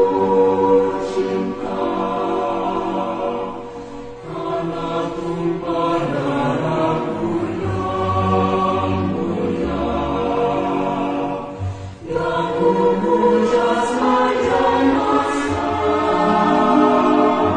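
A large group of schoolchildren singing a song together, with music accompanying them; the singing pauses briefly twice, between phrases.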